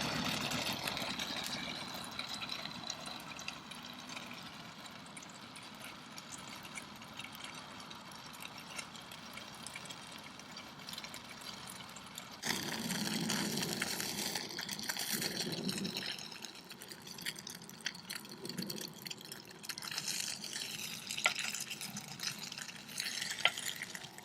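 Running, pouring water, growing louder about halfway through, with a few small knocks near the end.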